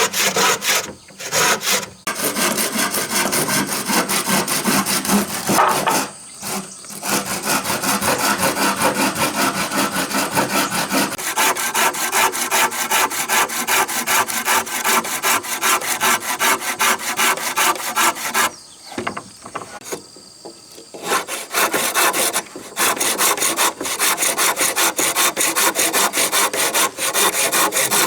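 Hand saw cutting through wood in steady, rapid back-and-forth strokes, with short pauses about a second in and around six seconds, and a longer pause about two-thirds of the way through.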